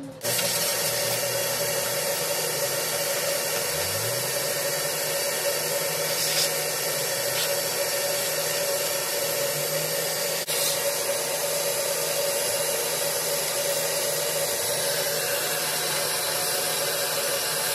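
A motor-driven blower or power tool running steadily with a rushing-air hiss and a steady hum, switched on just after the start and cut off near the end.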